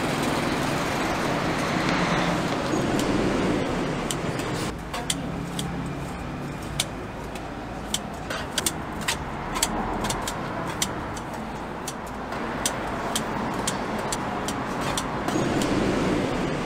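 Steady city traffic noise, swelling near the start and again near the end, with a scatter of sharp clicks and taps through the middle.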